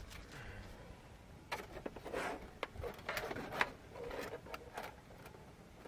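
A foldable metal stove windscreen being unfolded and set up around a camp stove: light clicks and short rustles of the panels, coming in scattered bursts.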